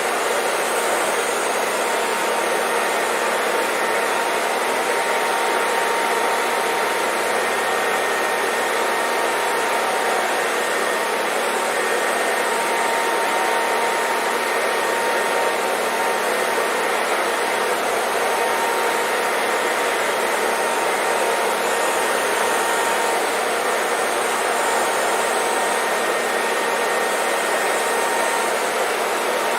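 Hair dryer blowing steadily: an even whooshing rush of air with a faint motor whine.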